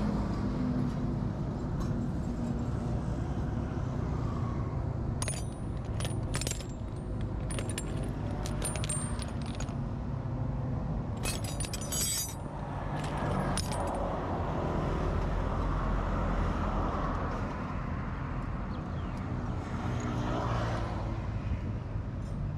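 Small metal scrap pieces jangling and clinking in two bursts as they are handled, about a quarter of the way in and again around halfway, over a steady low rumble.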